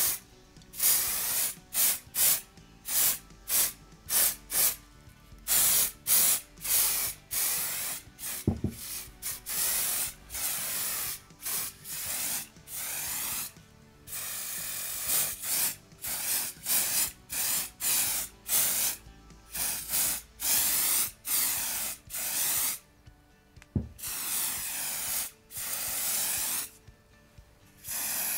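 Aerosol release agent sprayed from a can in many short, stop-start bursts of hiss, with a few longer sprays mixed in.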